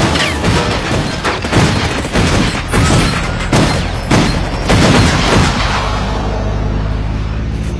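Film-soundtrack gunfire: police rifles and pistols firing repeatedly, with heavy booming shots about every half second. The shots thin out about six seconds in, and a steady low rumble takes over.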